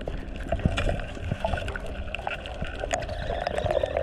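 Underwater sound picked up by a diving camera: a steady water hiss with many scattered crackling clicks.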